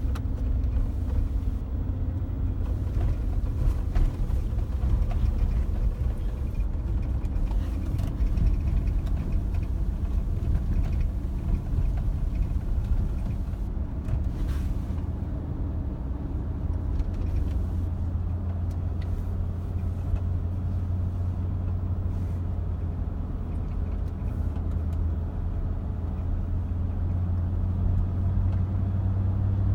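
Steady road and engine rumble of a 2007 Cadillac Escalade being driven, with faint intermittent clicks from a rattle on the passenger side over small bumps. The owner has not traced the rattle despite new strut assemblies and stabilizer links.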